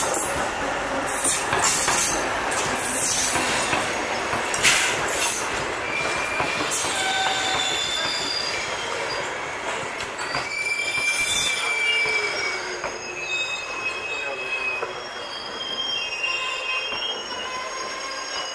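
Passenger train's coaches rolling slowly past on the adjacent track, their wheels squealing against the rails in several thin high tones that come and go over a steady rumble, with a few knocks in the first five seconds.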